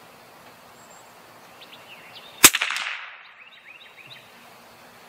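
A single shot from a CZ 457 bolt-action .22 LR rifle about halfway through: one sharp crack with a short fading echo.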